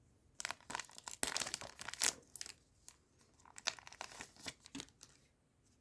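A trading card booster pack wrapper being torn open and crinkled, in two bouts of crackling.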